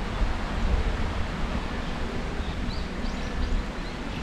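Outdoor ambience dominated by a steady low rumble of wind on the microphone, with a few faint, high bird chirps about three seconds in.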